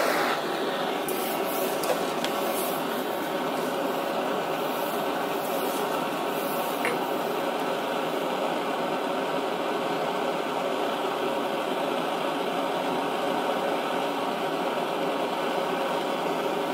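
Handheld canister gas blowtorch burning with a steady hiss, heating a flywheel's boss to soften the Loctite 638 retaining compound so the flywheel can be freed from its shaft. A few faint clicks sound over it.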